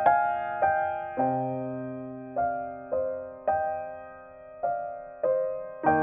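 Slow, gentle piano music: single notes and chords struck about once or twice a second, each left to ring and fade.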